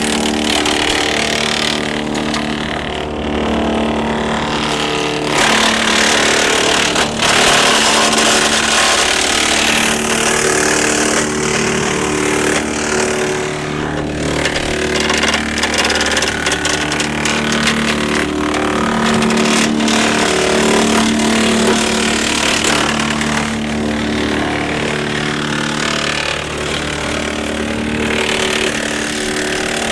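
A tractor engine running steadily under load, driving a Woodland Mills TF810 PTO wood chipper. Several stretches of crackling as small branches are fed in and chipped.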